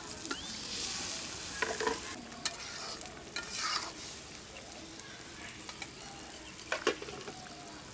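A watery spice masala bubbles and sizzles in a karahi with a steady hiss, while a metal spatula stirs it and now and then scrapes and clicks sharply against the pan.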